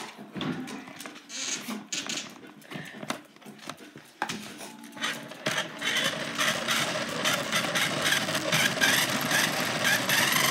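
Small electric motor and gears of a cheap toy RC car whirring up close, in a few short bursts at first, then running steadily from about halfway through as the car drives across the floor.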